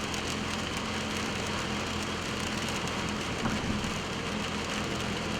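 Steady hiss of rain with a low, even hum underneath.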